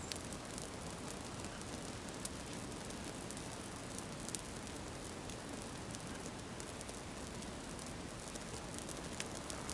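Sneaker burning in open flames: a steady hiss of fire with a few scattered sharp crackles.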